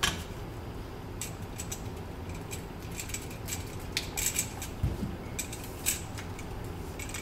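VVF cable stripper working on flat 2-core PVC cable: short, sharp clicks and snips in small clusters as the outer sheath is cut and pulled off, with tool-and-cable handling knocks on the table and one dull thump about five seconds in.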